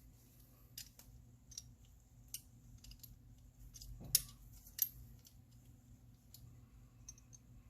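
Faint, scattered clicks and taps from the small parts of a diecast toy car being handled and fitted together, with a sharper click about four seconds in and another just under five.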